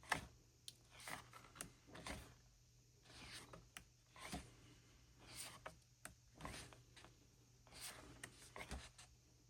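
Faint rustles and soft taps of photo book pages being turned and handled, in a dozen or so short separate sounds.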